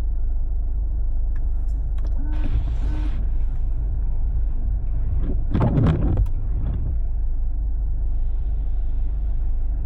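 Jeep driving on a snowy road: a steady low rumble of tyres and engine. A brief louder noise breaks in about halfway through.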